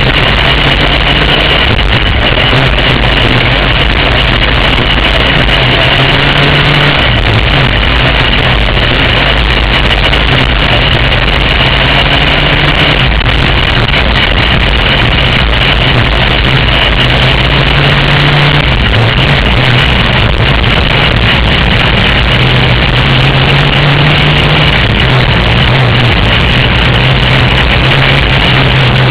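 A dirt-track racing kart's engine running at race pace, heard on board. The revs climb steadily along each straight and drop sharply three times as the driver lifts for the turns.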